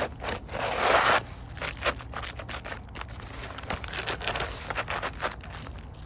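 Roofing work on brittle asphalt shingles: a scraping burst about a second in, then a run of small crackles and clicks as the shingles are handled.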